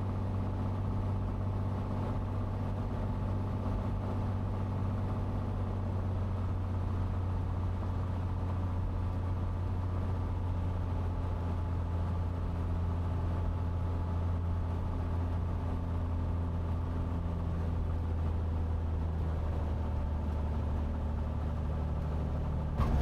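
Cessna 182T's six-cylinder Lycoming IO-540 engine and propeller running at low power as the plane rolls out after landing: a steady low drone with a hum of even tones.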